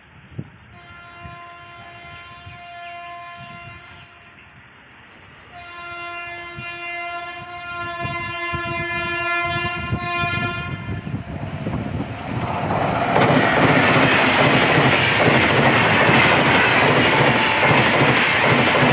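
Locomotive horn sounding two long blasts as an express passenger train approaches, the second about twice as long as the first. Then the train runs past at speed: a loud rumble of wheels on rail with a regular clickety-clack from the coaches passing over rail joints.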